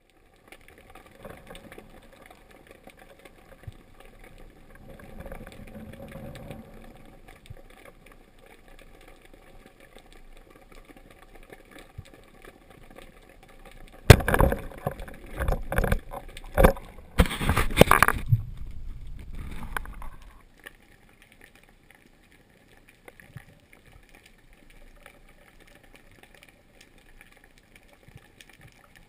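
Underwater sound picked up through a camera's waterproof housing: a faint steady hiss and low rumble. About halfway through, a sharp knock comes, followed by some six seconds of loud rushing, rattling noise, then it goes quiet again.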